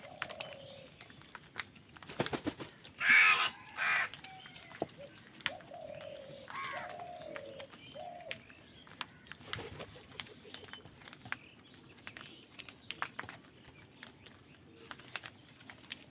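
Crows cawing: two loud harsh caws about three seconds in, with several shorter, lower calls after them and scattered small clicks and taps throughout.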